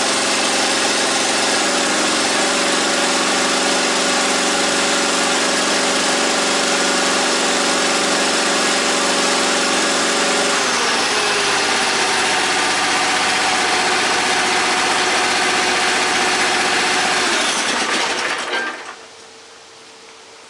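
Engine running steadily while driving the hydraulic pump of a homemade firewood processor. Its pitch drops slightly about ten seconds in, and near the end it is shut off and winds down over about a second.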